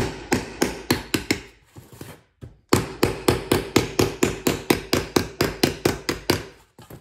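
Small hammer rapidly striking the stamped metal frame of an old intercom speaker, bending the frame inward. The blows come at about five a second, with a short pause about two and a half seconds in, and the metal rings under them.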